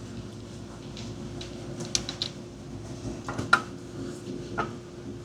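Scattered sharp clicks and clinks of hand tools and parts being handled during the repair, the loudest about three and a half seconds in, over a steady low hum.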